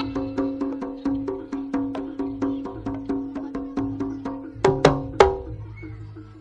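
Javanese jaranan music: percussion beating a fast, even pulse over steady ringing tones, with a low drum underneath. About three quarters of the way through come three loud, sharp cracks close together, and then the playing goes quieter.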